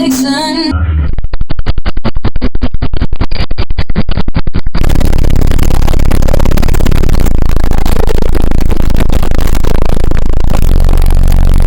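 Bass music played very loud through a car audio system of six 21-inch subwoofers. From about a second in there is a fast, even train of bass pulses. About five seconds in it turns into a continuous, heavily distorted din with a steady deep bass under it.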